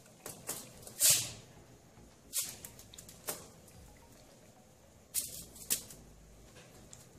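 Small plastic pump-spray bottle spritzing a fine mist onto the face: about five short hisses, unevenly spaced, the loudest about a second in.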